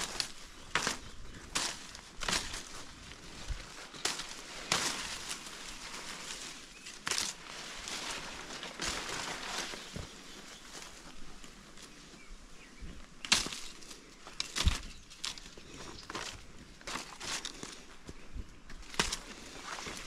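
Footsteps crunching and brushing through dry leaf litter and undergrowth on an overgrown mountain trail, irregular, roughly one a second, with two louder cracks about two-thirds of the way through.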